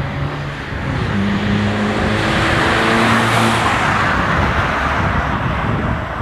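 1991 VW Golf Mk2's 1.6-litre four-cylinder engine running on its stock exhaust, the car moving. The engine note steps up in pitch, and road noise swells to a peak about three seconds in and then eases off.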